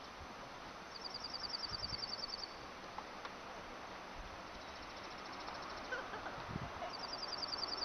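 A small songbird singing a fast trill of rapid, evenly repeated high notes, each trill lasting a second or more: one about a second in, a fainter one around six seconds, and another near the end, over a steady outdoor hiss.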